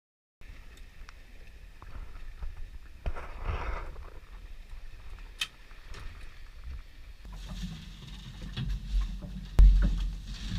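Boat motoring slowly in to a dock: a low rumble with water noise and scattered knocks, the rumble growing much louder in the last few seconds.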